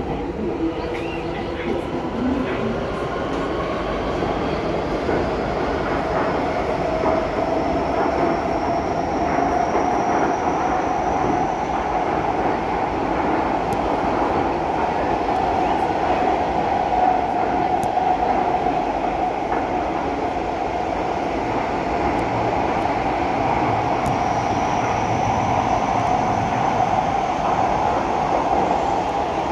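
SMRT C151B metro train running between stations, heard from inside the carriage: a steady rumble of wheels on rail with a motor whine that rises in pitch over the first ten seconds or so, then holds steady.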